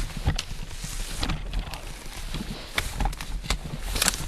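Footsteps through brush and dry grass: scattered crackles and twig snaps with clothing and gear rustle, over a low rumble.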